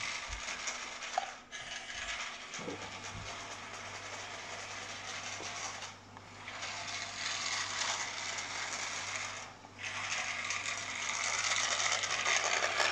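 Fireman Sam IRC Wallaby 2 toy remote-control helicopter driving along the floor, its motor and gear drive running with a busy mechanical rattle. It cuts out briefly three times.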